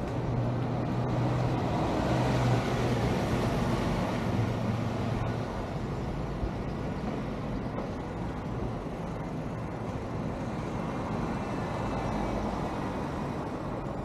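Street traffic: a motor vehicle's engine hum passes, loudest about two to three seconds in, over a steady wash of road noise.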